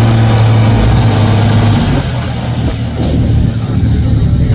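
DAC 665T 6x6 truck's diesel engine working hard under load as the truck climbs out of a ditch, then easing off about two seconds in. A thin high whine falls in pitch near the end.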